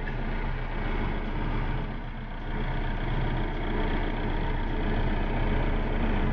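Manitou telehandler's diesel engine idling steadily at about 1000 rpm, heard from inside the cab.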